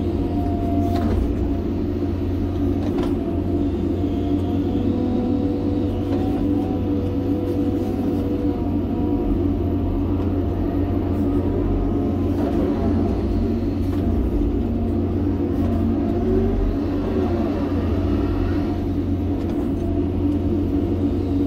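John Deere 350G excavator's diesel engine running steadily under load, heard from inside the cab, with a hydraulic whine that rises and falls in pitch as the boom and bucket move.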